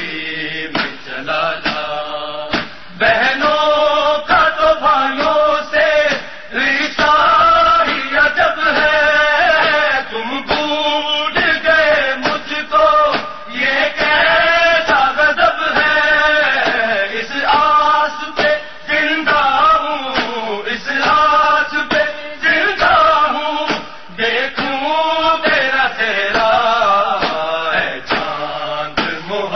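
Voices chanting a noha, an Urdu lament for Muharram, in a melodic line that rises and falls phrase by phrase.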